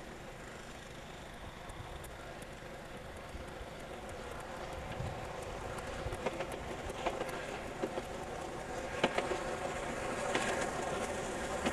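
A train approaching along the line, its sound growing steadily louder, with sharp clicks coming more often and louder towards the end.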